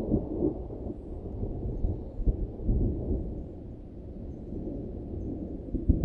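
Storm sound effect: deep, rolling thunder rumbling and swelling, with a sharper crack near the end.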